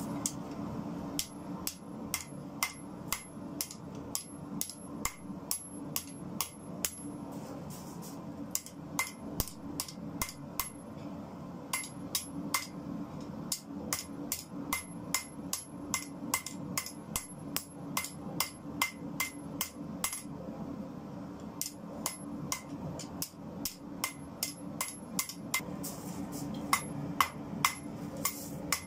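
Hand hammer forging a red-hot bar of car-spring steel on an anvil: about two to three blows a second, each with a short metallic ring, pausing briefly twice. A steady low hum runs underneath.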